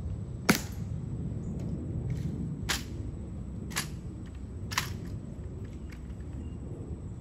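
Sharp cracks of white-gloved hands slapping and snapping a rifle during a ceremonial honor-guard rifle inspection. The loudest crack comes about half a second in, then three more follow about a second apart, over a low outdoor murmur.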